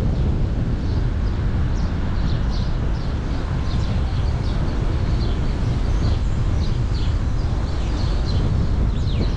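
Steady low rumble of wind buffeting the microphone from a moving car, with birds chirping in many short, high calls throughout.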